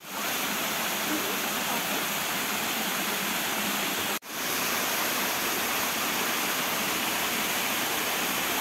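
Steady rush of water from a waterfall and mountain stream, cut off for an instant about four seconds in.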